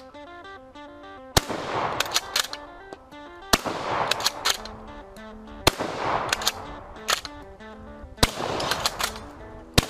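A bolt-action shotgun fired five times, roughly every two seconds, each shot with a short echoing tail, with lighter clicks of the action being worked between shots. Background music plays throughout.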